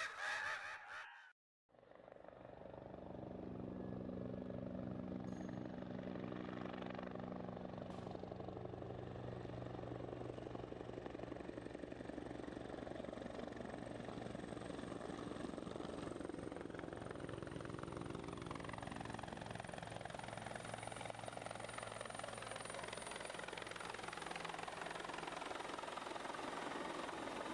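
A flock of birds calling, cut off about a second in; after a moment of silence a helicopter's steady rotor and engine drone fades in and runs on evenly, with a fast pulsing beat under it.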